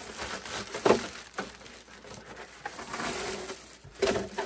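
Handling noises: rustling with a few light knocks, the sharpest about a second in.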